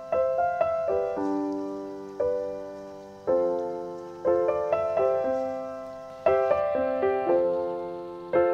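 Background piano music: slow notes and chords struck about once a second, each ringing and fading away before the next.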